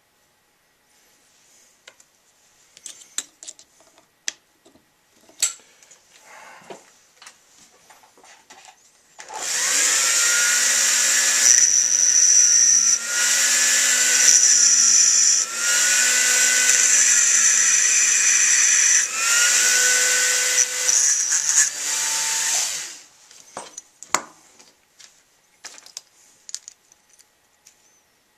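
Small hand-held rotary tool with a burr running against a metal tenor saxophone mouthpiece, grinding and shaping the metal. It runs as a steady high whine for about thirteen seconds, starting about a third of the way in, with several brief breaks and slight dips in pitch as it bites. A few light clicks and taps of handling come before it.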